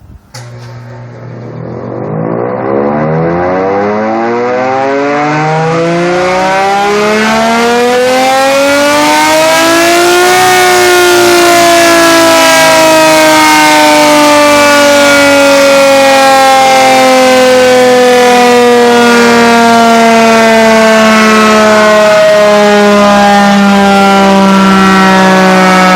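Surplus electric civil-defence air raid siren starting up, very loud. Its wail rises steadily in pitch for about ten seconds as the rotor spins up, then falls slowly as it winds down.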